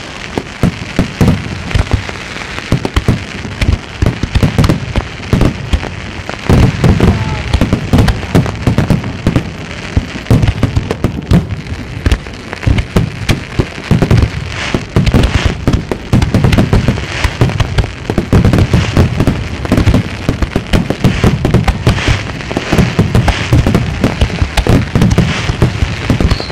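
Aerial fireworks display: a continuous barrage of shell bursts, with booms and bangs coming several a second and overlapping, over a steady crackle.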